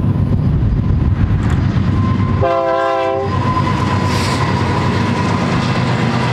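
Two GE C44-9W diesel locomotives rumbling past under power, with one short multi-chime horn blast about two and a half seconds in. After the horn the engine rumble falls away and the clatter of empty double-stack well cars rolling over the rails follows.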